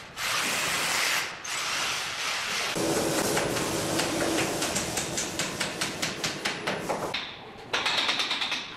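Electric drill boring into a plastered wall at the end of a wooden handrail, running in several bursts. In the middle stretch the motor's steady hum carries a quick run of knocks, about five a second.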